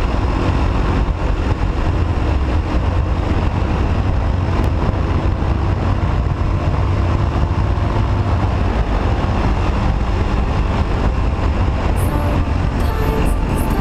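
Husqvarna SMS 630 supermoto's single-cylinder engine running at speed, heard from a handlebar-mounted camera with heavy wind rumble on the microphone.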